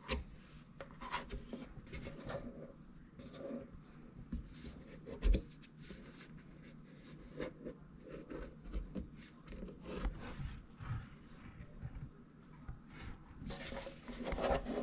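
Excess plumber's putty being scraped and wiped away from around the sink drain flange: quiet, irregular rubbing and scraping with a few small knocks, the loudest about five seconds in.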